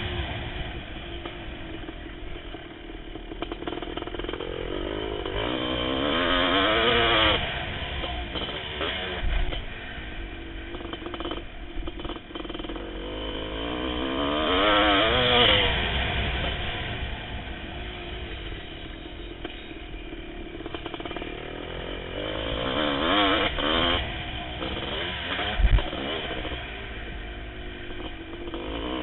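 Kawasaki KX500 two-stroke single-cylinder motocross engine, on a new exhaust system, being ridden hard: the revs climb in three long pulls, each cut off sharply as the throttle shuts, with a couple of heavy thumps in between.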